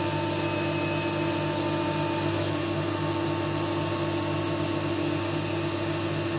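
CNC milling machine's end mill cutting a metal plate under flood coolant: a steady spindle and cutter whine over the hiss of the coolant spray.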